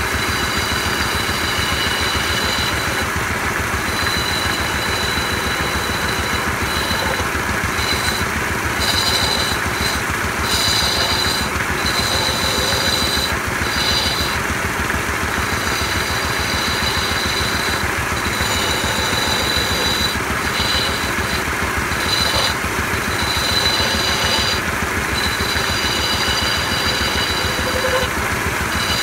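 Motor-driven wood lathe running with a steady rumble while a long turning chisel cuts into the spinning wooden spindle. A high whine keeps coming and going over it.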